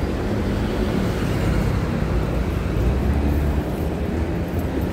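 Metro train running: a steady low rumble with faint whining tones above it.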